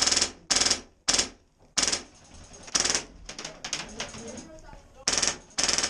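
HPA-powered airsoft RPK firing a string of short full-auto bursts, each a rapid rattle of shots lasting a fraction of a second. There are about eight bursts, with a gap of about a second in the middle.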